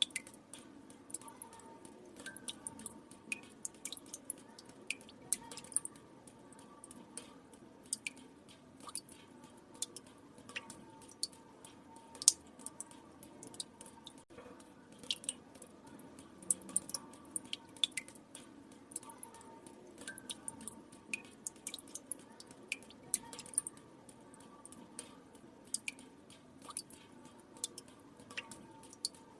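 Water drops falling into still water: irregular plinks and drips, a few a second, over a faint steady background.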